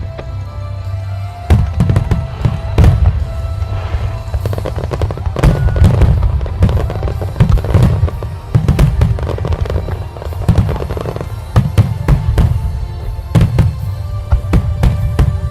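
Fireworks going off in a rapid, irregular string of bangs, starting about a second and a half in and continuing without a break, with music playing underneath.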